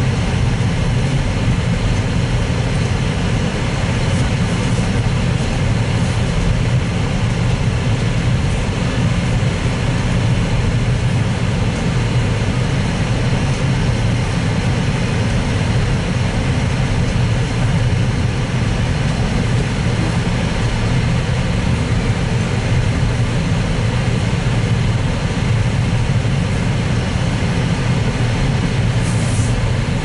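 Steady engine and road noise inside a Jeep's cabin as it drives on a snow-covered road, a constant low rumble.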